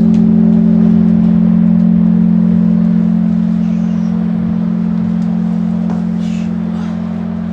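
Large 300-pood (about 4.9-tonne) church bell, cast in 1805 by Khristofor Krepyshev, ringing on after a stroke of its clapper in a slow blagovest toll. Its deep hum holds steady while the higher overtones fade and the whole sound slowly grows quieter.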